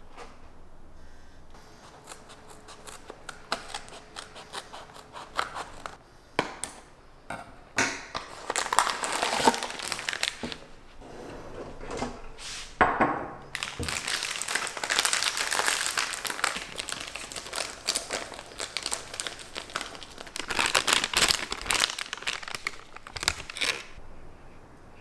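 Plastic bag of hotcake mix crinkling and rustling as it is handled and opened, with many small crackles and clicks. It is faint at first and louder from about a third of the way in until near the end.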